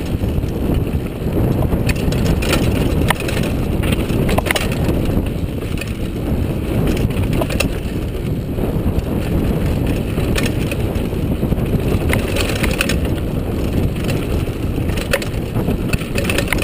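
Mountain bike descending fast over a rough dirt trail: a steady loud rumble of tyres and wind on the microphone, with frequent sharp clicks and knocks as the bike rattles over the bumps.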